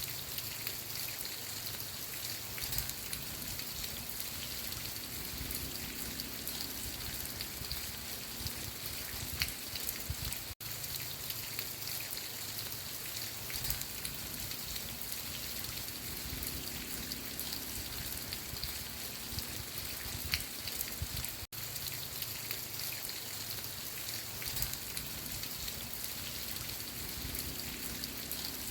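Steady rain falling, with single drops ticking on a surface. The sound cuts out very briefly twice, about eleven seconds apart, where the recording repeats.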